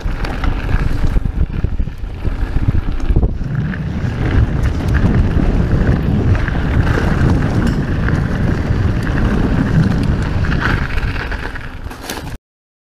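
Wind buffeting the microphone and the tyres of a Santa Cruz Megatower mountain bike rumbling over a dirt and gravel trail at speed, with scattered clicks and rattles from the bike. The sound cuts off suddenly near the end.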